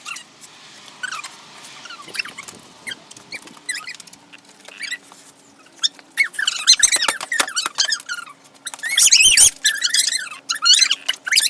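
Rapid, wavering high-pitched squeaks mixed with sharp clicks, faint at first and then loud and dense from about six seconds in.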